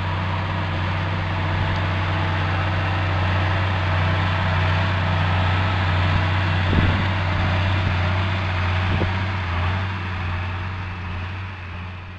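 Massey Ferguson 8220 tractor's diesel engine running with a low steady drone as it pulls a fertiliser spreader past, fading out near the end.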